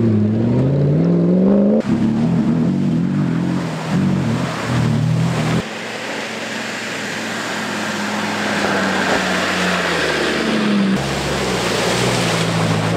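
Off-road rally 4x4 engines revving under load, with hard cuts from one truck to the next; the pitch climbs in the first couple of seconds. In the middle stretch a steady engine note runs under the rush of water spray as a truck wades through a river.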